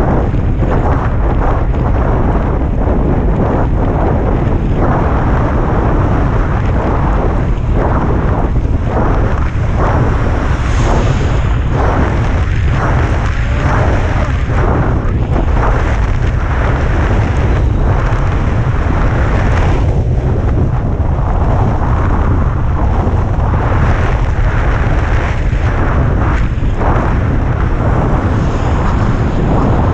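Strong wind buffeting a helmet-camera microphone at speed, a loud, steady rumble with constant fluttering gusts.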